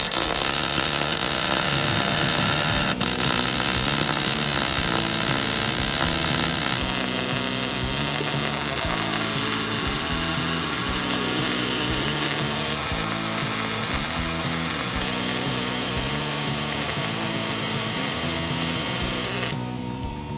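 MIG welding arc from a Fronius TransSteel 2200 running 0.030 ER70S-6 steel wire with 90/10 argon–CO2 shielding gas at its maximum amperage on a 110 V, 20 A supply: a steady, loud arc noise that stops shortly before the end.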